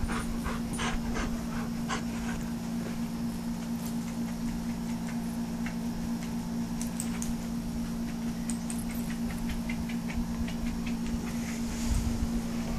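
A puppy panting and moving about, with small clicks, over a steady low hum.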